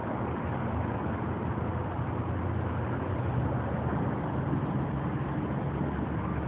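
Steady low rumble of road traffic, with a faint engine hum running through it.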